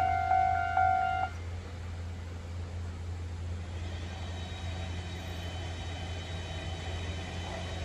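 Railway level-crossing warning bell ringing a repeated electronic ding, about two strokes a second, then cutting off about a second in. After it a steady low hum remains, with faint high tones coming in about halfway through.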